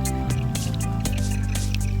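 Background music with a steady bass line and held tones, with faint dripping or small splashes of water.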